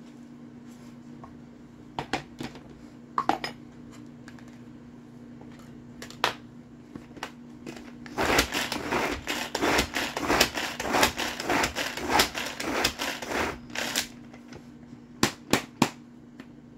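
Tupperware Power Chef pull-cord chopper pulled in quick succession, about seven pulls, its blades whirring and rattling through bell peppers in the plastic bowl for about six seconds in the second half. A few sharp plastic clicks come before and after from handling the chopper, over a steady low hum.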